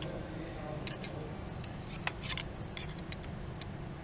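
Scattered light clicks and clinks of tools and small metal parts being handled during engine work, about half a dozen, over a steady low hum.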